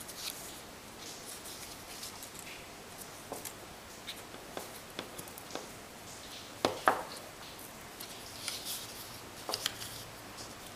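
Torn double-sided paper petals being rolled around a bamboo skewer by hand: soft paper rustling with scattered small clicks and taps, a few sharper taps about two-thirds of the way through.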